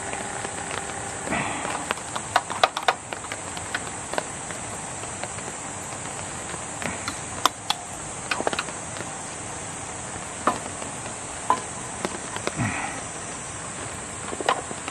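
Chopsticks clicking and tapping against a nagashi-somen machine and its bowl as somen noodles are dropped in, in scattered sharp clicks. Behind them runs a steady high chirring of night insects.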